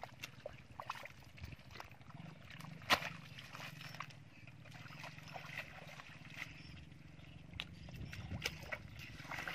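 Bare feet and hands working in wet mud and shallow water: scattered squelches, small splashes and clicks, the sharpest about three seconds in, over a low steady hum.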